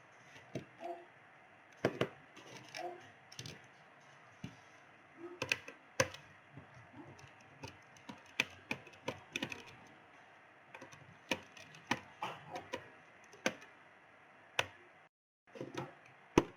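Irregular light clicks and knocks of a laptop and small hand tools being handled on a workbench as the laptop is opened up.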